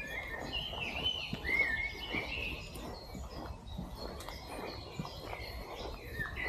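A songbird singing a warbling phrase of quick, bending chirps for the first two and a half seconds, then another short phrase near the end.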